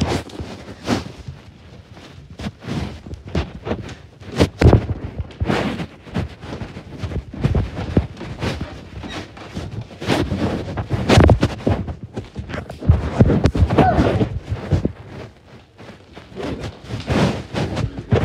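Irregular knocks, thuds and rubbing from a phone being handled right against the microphone while the person holding it moves about.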